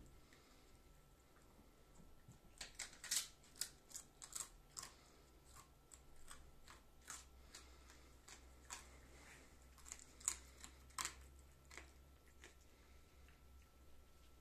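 A fox chewing and crunching on something hard: a run of sharp, irregular crunches begins about two and a half seconds in and thins out a couple of seconds before the end.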